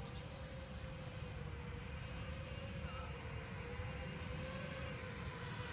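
ZMR 250 racing quadcopter's brushless motors (2205, 2300 kV) and propellers whining steadily as it descends to land, the pitch wavering slightly with the throttle.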